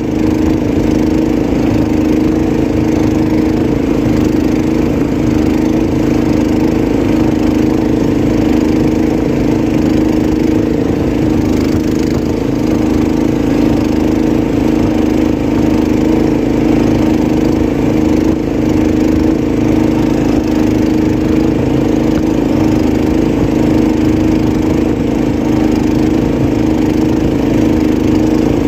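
A small engine running steadily at a constant speed, with no change in pitch.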